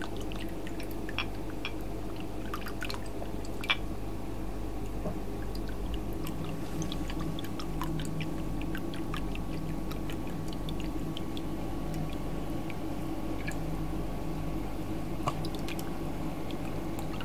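Soy sauce being poured from a bottle into a freezer bag, with small drips and light clicks and one sharper click about four seconds in, over a steady low hum.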